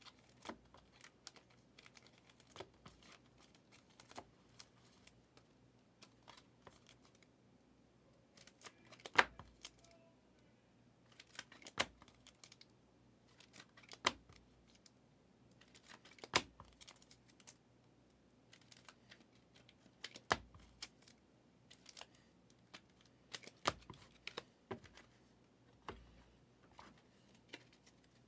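Trading cards being handled and flipped through by hand, faint light clicks and taps with a sharper snap every two seconds or so from about nine seconds in.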